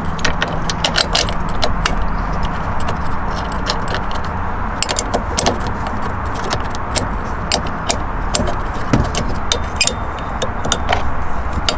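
Metal tools and parts clinking and rattling in many short, irregular clicks over a steady low rumble.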